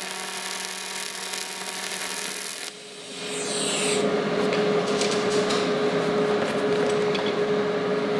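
AC TIG welding arc on aluminium, held just above the metal to ball the tungsten tip, buzzing and hissing steadily before cutting off suddenly about a third of the way in. A steady whir with a single humming tone follows.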